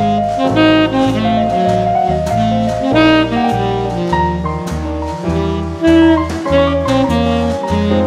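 Background jazz music: a saxophone melody over a bass line stepping from note to note, with drums keeping a steady beat.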